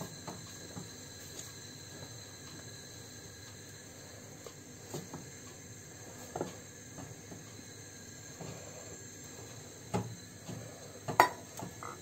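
A few short clinks and knocks of stainless steel kitchenware against glass and the hob: a small steel pot set down on a gas hob and a steel bowl set over a glass of milk. The loudest knock comes about a second before the end, over a faint steady background.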